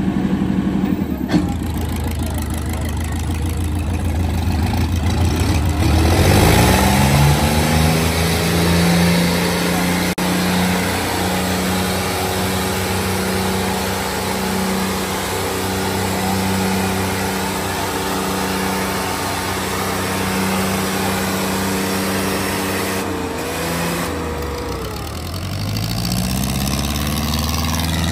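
Tractor diesel engines revving up about six seconds in and held at high revs under heavy pulling load in a tractor tug-of-war. Near the end the revs drop back, then climb again.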